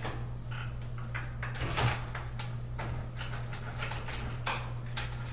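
Irregular clicks, taps and scrapes of day bed frame parts and bolts being handled and fitted during assembly, over a steady low hum.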